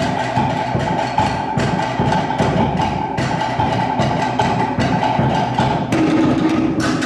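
Polynesian drum music for a hip-shaking dance, built on a fast, dense rhythm of sharp wooden strokes like slit drums, with a steady backing that drops lower about six seconds in.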